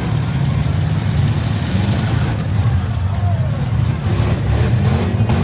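V8 engines of stock demolition derby cars running together in a loud, steady, deep rumble.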